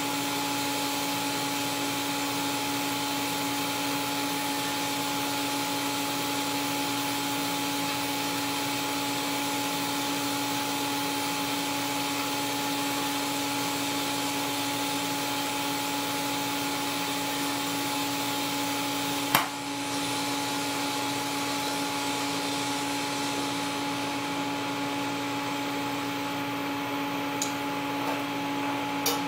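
TIG welding on carbon-steel pipe turning in a pipe rotator: a steady hiss with a constant hum. There is a sharp click about two-thirds of the way through, and the hiss thins near the end as the arc stops.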